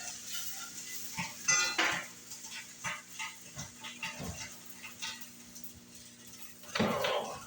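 Breakfast cooking on a stove: a metal utensil clinking and scraping against a pan in short irregular strokes, with a louder clatter near the end.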